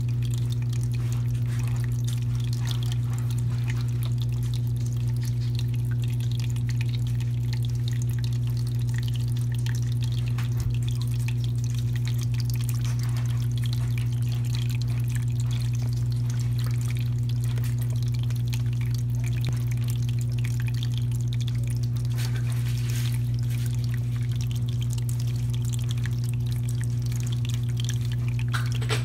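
Pet water fountain running: its small electric pump hums steadily on one low tone, with water trickling over the flower spout.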